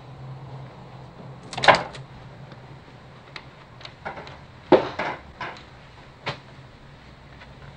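A wooden office door being opened, its latch and knob clicking and rattling, followed a few seconds later by a heavier knock and several lighter knocks and footfalls, over a low steady hum.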